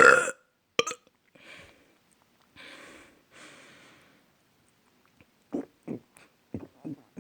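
A loud burp ending right at the start, then a few faint breathy exhalations. From about five seconds in comes a run of short, low vocal pulses, about three a second.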